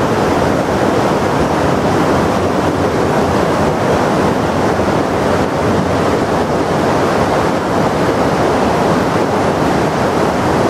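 Steady, loud rush of a fast mountain torrent flowing close by.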